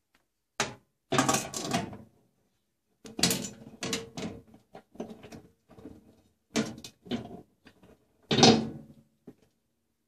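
Glass turntable plate being fitted inside a microwave oven cavity: a string of knocks, clinks and scrapes of glass on plastic and metal, loudest about a second in and again near the end.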